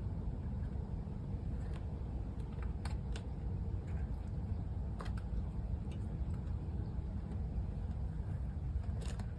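A few faint, light metallic clicks and taps as brake pad spring clips are handled and fitted, over a steady low rumble.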